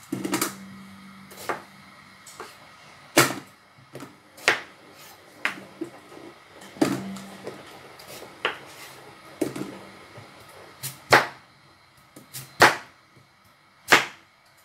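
Kitchen knife chopping raw carrot into thick chunks on a cutting board. Each cut ends in a sharp knock of the blade on the board, about fourteen cuts spaced roughly a second apart, some in quick pairs.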